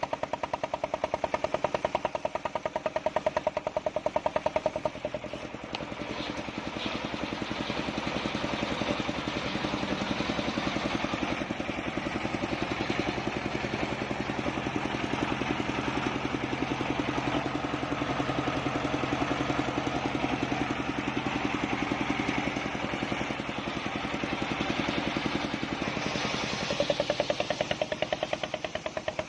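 Engine-driven table circular saw running with a fast, even engine beat. From about six seconds in until near the end, a rasping cutting noise joins it as the blade goes through a large wadang log, then the plain engine beat returns.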